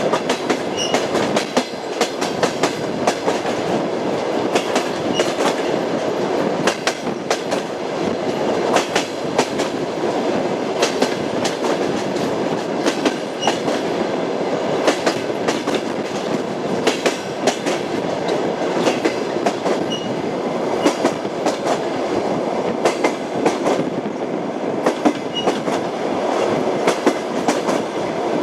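Railway carriage wheels clicking and clattering over rail joints, over the steady rumble of a moving train.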